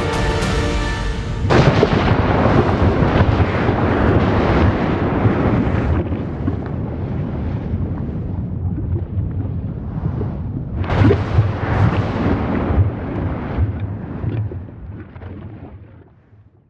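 Background music ending about a second and a half in, then wind buffeting the microphone: a loud, gusty rumble that fades out near the end.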